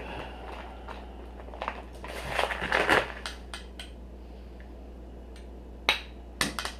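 Product packaging being handled: crinkling and rustling, loudest about two to three seconds in, then a few sharp clicks near the end.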